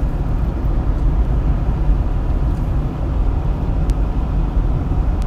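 Steady low rumble of a vehicle running, with no break or change.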